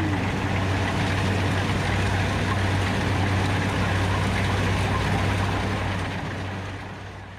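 Rice combine harvester running steadily: a deep, even engine hum under dense mechanical noise, fading away near the end.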